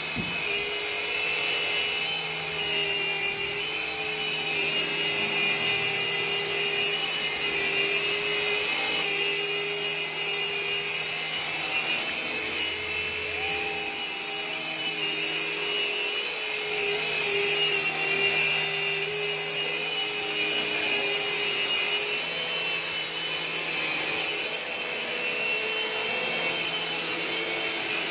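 Double Horse 9102 toy RC helicopter's small electric motors and rotors whining steadily in flight, the pitch wavering slightly as the throttle shifts.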